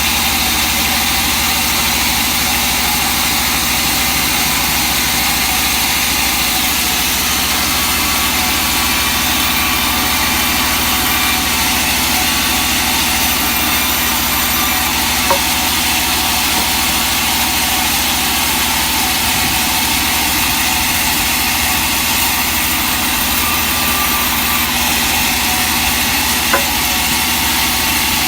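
Sawmill machinery running steadily: a constant engine-driven hum with a high hiss, unchanging in level, with two brief clicks, one about halfway through and one near the end.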